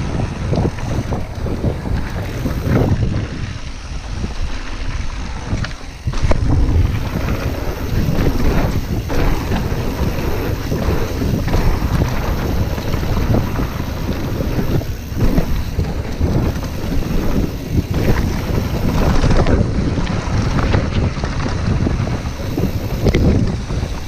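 Wind rushing over the microphone of a handlebar-mounted camera on a mountain bike going fast down a dirt trail, with the bike clattering and rattling over the bumps. The sound dips briefly a few seconds in, then comes back louder.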